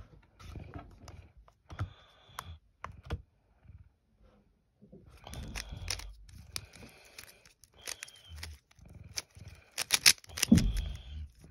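A plastic 3x3 speed cube being turned fast by hand: a rapid, irregular rattle of clicks and clacks as its layers snap round. There is a short lull a little after 3 s, then dense turning starts again near 5 s.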